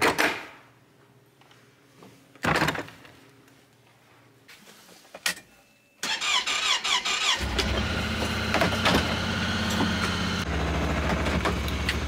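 Plastic feed buckets knocked down into the bed of a side-by-side utility vehicle, two thuds a couple of seconds apart. About six seconds in the vehicle's engine is started, catches and runs steadily.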